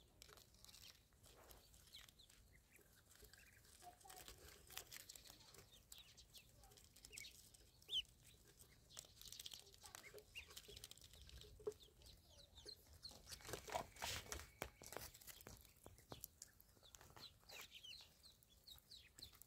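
Ducklings foraging: faint, scattered short high peeps with soft clicks and rustles from pecking at the ground.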